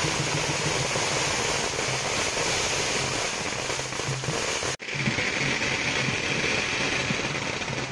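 String of firecrackers going off in a dense, continuous crackle, with a momentary break nearly five seconds in.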